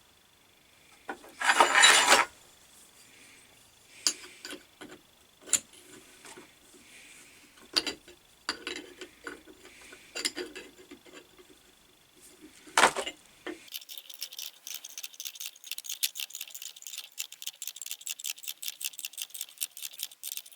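Metal parts of a lathe fixed steady being handled and adjusted: a loud metallic clatter about two seconds in, scattered clinks and knocks, then from about fourteen seconds a rapid, even ticking of several clicks a second. A finger that is still too stiff is being worked.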